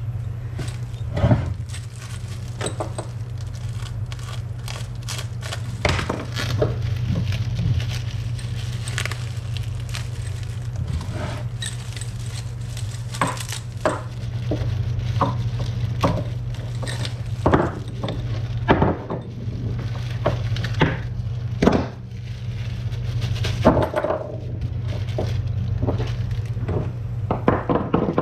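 Irregular clinks, knocks and rattles of metal drill-press parts being handled and set down during assembly, a few ringing briefly. A steady low hum runs underneath.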